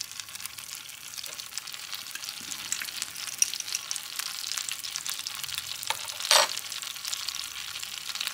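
Butter melting and sizzling in a hot nonstick frying pan, a steady fine crackle, with one louder sharp crack about six seconds in.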